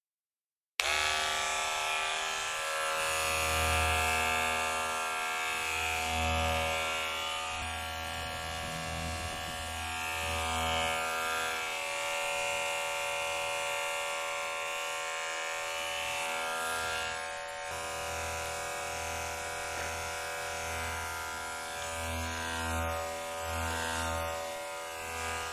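Electric hair clipper starting abruptly about a second in, then running with a steady buzz made of many even tones. A low hum under it swells and fades every second or so.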